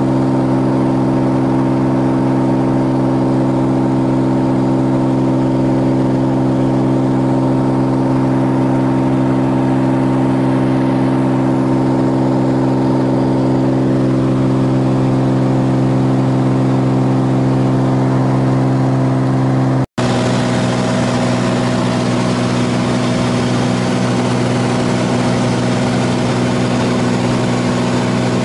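Steady engine-and-propeller drone of a Cirrus single-engine piston airplane in cruise, heard inside the cockpit. It cuts out for an instant about two-thirds of the way through, then carries on with more hiss.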